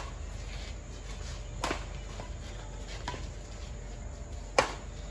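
Badminton rackets striking a shuttlecock during a doubles rally: three sharp hits about a second and a half apart, the last one the loudest.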